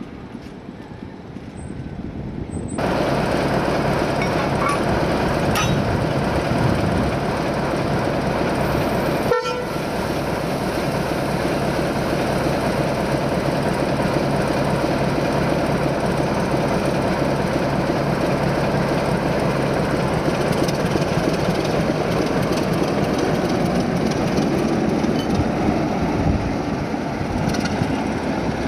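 Commonwealth Railways diesel locomotive's engine running loudly and steadily as the loco moves along the track. The first few seconds are much quieter before the engine sound comes in.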